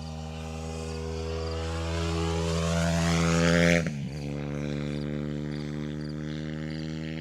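Propeller plane engine flying past, growing louder as it approaches, then dropping in pitch and level about four seconds in as it passes.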